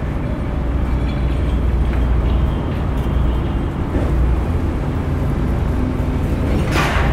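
Heavy construction machinery at a pile-driving site running with a steady low engine rumble. Near the end there is one short, sharp rush of noise.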